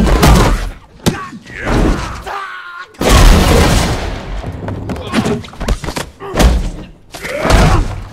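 Sound-designed fight effects: a run of heavy hits and thuds with grunting shouts between them, and a big crashing impact about three seconds in.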